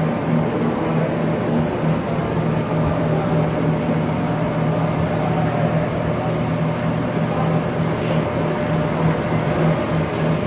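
Nardini engine lathe running under power, a steady even hum from its motor and headstock gearing.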